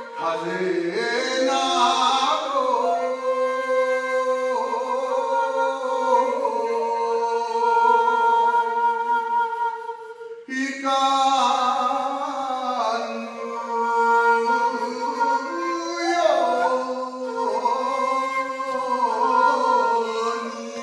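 A man singing a Japanese minyo folk song with long, held, wavering notes, accompanied by a shakuhachi bamboo flute. There is a brief pause about halfway through.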